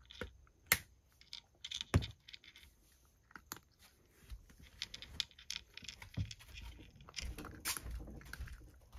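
Cat eating dry kibble from a wooden tray: irregular crunching and small clicks, with a few sharper clicks about a second in, two seconds in and near the end.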